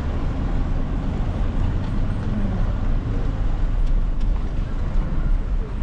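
Road traffic: a steady, heavy rumble of passing vehicles.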